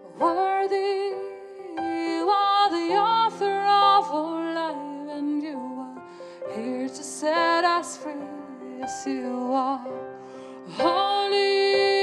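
Slow, gentle worship music: sustained keyboard chords under a melody line that glides between notes with vibrato. A new long held note comes in near the end.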